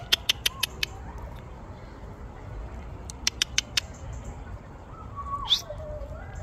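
Two quick runs of short, sharp squeaks, one at the start and one about three seconds in, then a single higher squeak about five and a half seconds in: distress calls of a squirrel caught in a cat's mouth.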